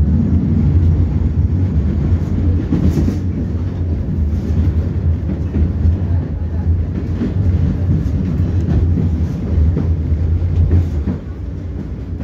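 Ride noise inside a moving 71-623-02 low-floor tram: a steady low rumble of the wheels on the rails and the running gear, with scattered clicks and knocks. The rumble gets quieter about eleven seconds in.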